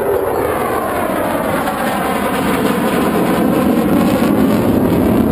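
Belgian F-16 fighter jet's engine noise during a display pass: a loud, steady jet rush with a swirling sweep in pitch as the aircraft moves across the sky, growing a little louder toward the end.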